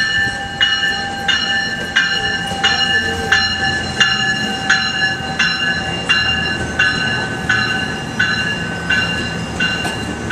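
The bell of an NJ Transit multilevel commuter train ringing steadily, about three strokes every two seconds, over the low rumble of the passing train. The ringing stops near the end.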